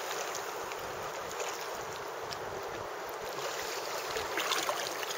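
River water lapping and rippling right at the microphone, which is held at the surface: a steady wash with small splashes, a little louder toward the end.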